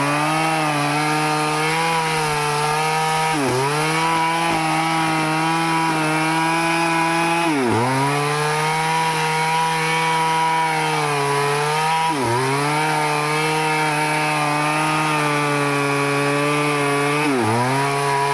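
Two-stroke Stihl chainsaw running at high revs while cutting teak wood. Its pitch dips sharply and recovers four times, about every four seconds, as the load or throttle changes.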